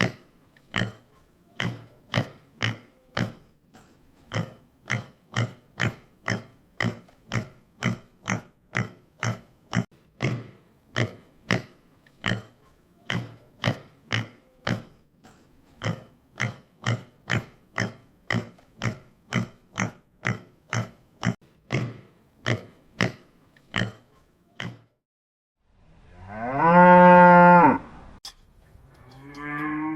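A farm animal's short calls repeated evenly, about three every two seconds, stopping about 25 seconds in; then, after a brief pause, one long steady call lasting about two seconds, like a cow's moo.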